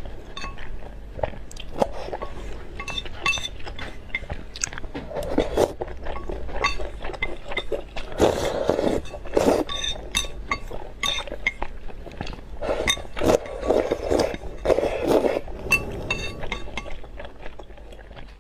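A person eating spicy instant noodles close to the microphone: slurping and chewing, with many sharp clicks of chopsticks against the bowl.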